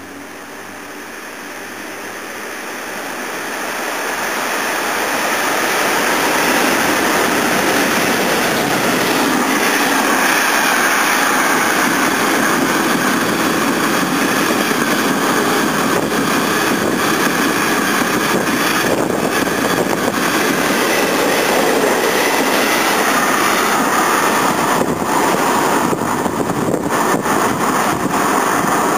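Freight train approaching and passing through the station at speed: a growing rumble over the first several seconds, then the steady noise of wagons rolling past on the rails, with scattered clacks in the later part.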